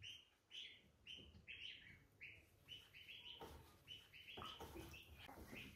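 Faint water drips plinking into the bathwater of a plastic baby tub, about two or three drops a second, from a baby held just above the water.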